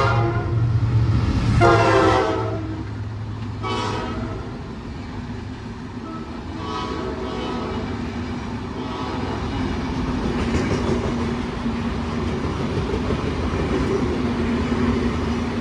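Diesel train's horn sounding three short blasts in the first half, the last one fainter, over the low rumble of the locomotive. Then the wheels clatter steadily over the rail joints as the train passes.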